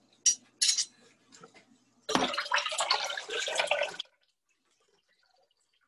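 Kitchen tap running water for about two seconds, then shut off suddenly. Two short sharp sounds come in the first second, before the water.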